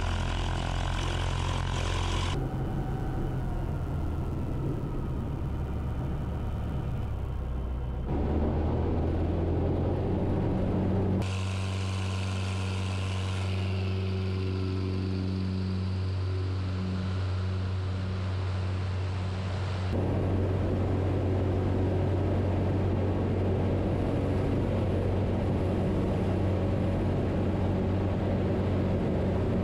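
Zenith CH 750 Cruzer light airplane's engine and propeller running as it taxis and takes off, in several abrupt cuts. The drone steps louder about eight seconds in and again about twenty seconds in, where power comes up for the takeoff and climb.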